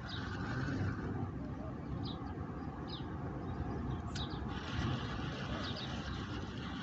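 Steady low outdoor rumble, like wind on the microphone or distant traffic, with a few short high chirps, about two, three and four seconds in.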